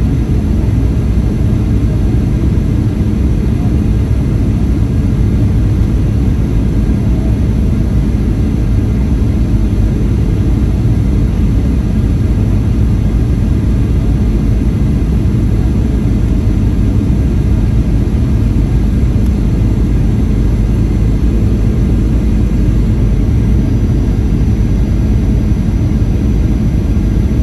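Steady jet airliner cabin noise on final approach, from a Boeing 737's engines and the airflow past the fuselage, heard from a window seat over the wing. It is a constant low drone with no change in thrust.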